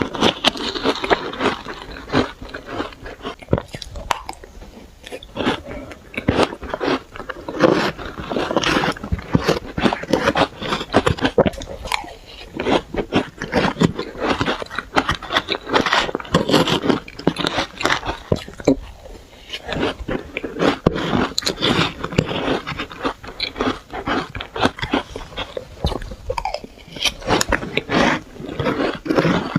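Close-miked biting and chewing of powdery shaved ice: dense, crackly crunching that goes on almost without a break, easing briefly every several seconds.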